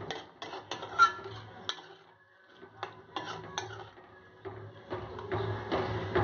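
Metal ladle clinking and scraping against a metal wok while stirring a simmering broth: a run of quick, irregular knocks that stops briefly in the middle and then picks up again.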